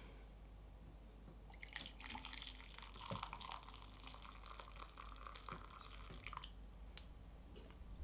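Brewed coffee poured from the glass lower bowl of a siphon coffee maker into a mug: a faint, steady trickle that starts about two seconds in and stops after about four and a half seconds.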